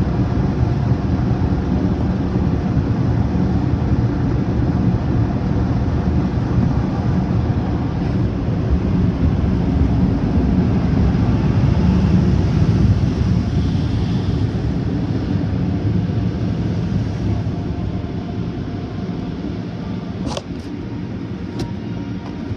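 Automatic tunnel car wash machinery running, heard from inside the car's cabin: a loud, steady rumble with a low hum that fades over the last few seconds as the car leaves the wash.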